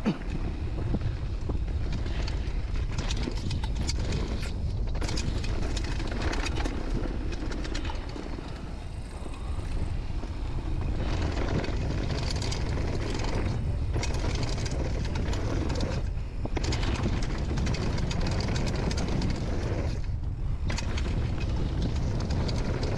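Downhill mountain bike running fast over a dirt and gravel trail, heard from a camera on the rider. Wind buffets the microphone, and the tyres crunch and the bike rattles over the rough ground, with a few brief lulls.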